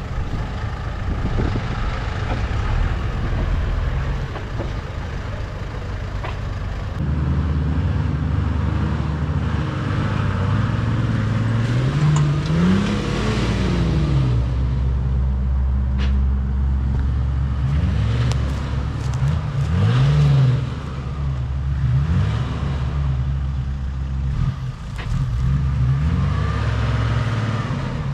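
Toyota LandCruiser 4WD engine running under load in deep mud, revving up and back down several times. The drone gets louder and heavier about seven seconds in.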